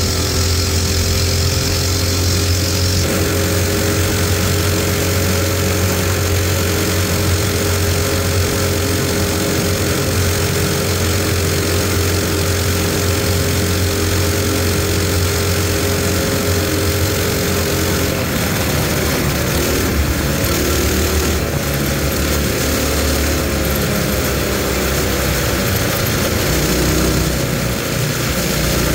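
Coleman mini bike's small single-cylinder four-stroke engine running under way at a steady throttle; its pitch holds steady and then wavers and shifts over the last ten seconds.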